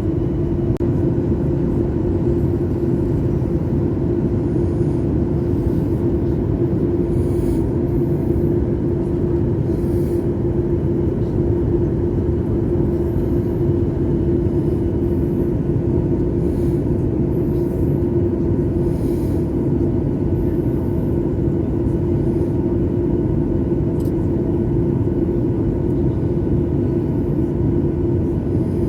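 Steady airliner cabin noise during the approach to landing: a continuous engine and airflow rumble with a steady hum held over it.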